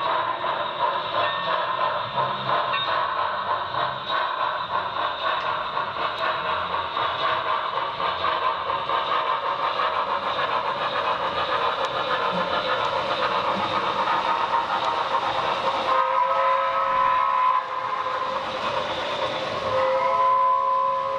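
Sound-equipped HO-scale Broadway Limited 4-6-4 Hudson model steam locomotive running with a steady sound, then sounding its steam whistle twice: a chord-like blast of over a second about three-quarters of the way in, and another starting near the end.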